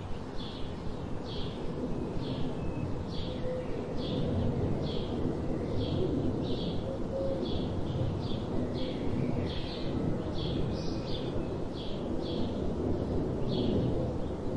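Outdoor ambience: a short high chirp repeating about one and a half times a second, over a low rumble that grows louder about four seconds in.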